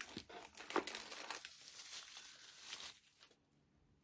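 Clear plastic packaging bag crinkling and rustling as it is handled, with many small sharp crackles, stopping about three seconds in.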